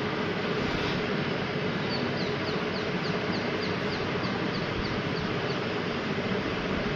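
Steady background hiss, with a rapid run of short, high, falling chirps, about three or four a second, starting about two seconds in and lasting a few seconds.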